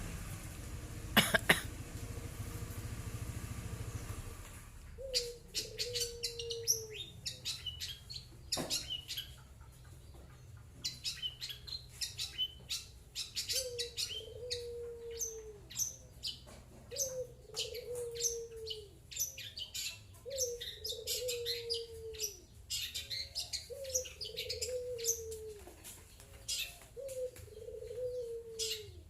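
Cendet (long-tailed shrike) calling in bursts of rapid, sharp, high chirps and chatter, starting about five seconds in. A lower, falling, coo-like call of about a second repeats every three seconds or so.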